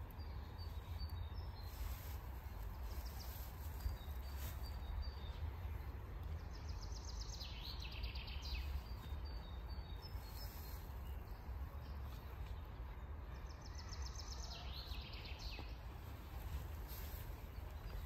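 Birds singing in open countryside: short high chirps, and two longer trilled song phrases, one about seven seconds in and one about fourteen seconds in. A steady low rumble runs underneath.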